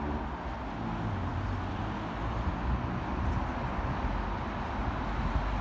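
Steady road traffic noise from a town street: an even low rumble and hiss.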